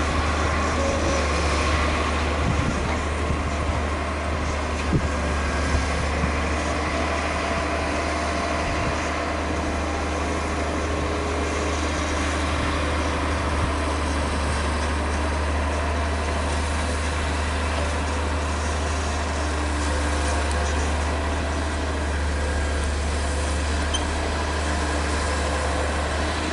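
Heavy diesel construction machinery, such as a bulldozer, running steadily with a constant low engine drone and a few sharp knocks in the first several seconds.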